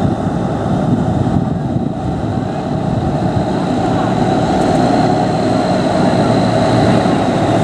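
Diesel engine of a bobtail semi tractor running as the tractor drives slowly past, growing gradually louder, with a faint steady high whine above the engine noise.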